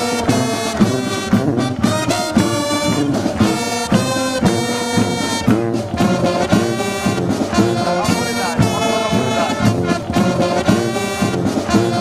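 Brass marching band playing over a steady drum beat.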